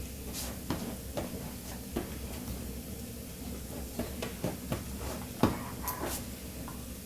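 Irregular light knocks, taps and scuffs from a German Shepherd and a cat playing, about a dozen scattered hits with the loudest about five and a half seconds in.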